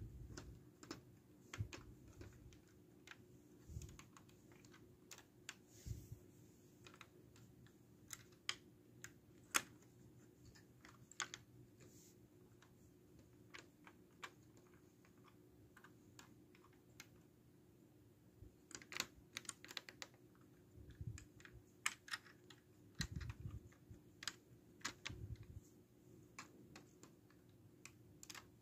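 Light, irregular plastic clicks and taps of a LEGO brick model being handled, its landing-gear parts knocked and fingered, with a few soft low bumps; the clicks come thicker in the second half.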